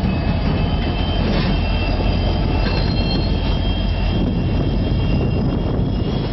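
Union Pacific diesel-electric locomotive running at close range as it moves slowly past, a steady low engine drone with the rumble of the train, and thin high squeals from the running gear over it.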